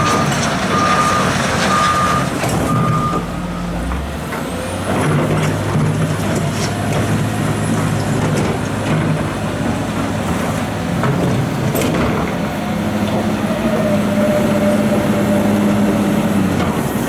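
Heavy diesel machinery running steadily. A reversing alarm beeps about once a second for the first three seconds, then stops.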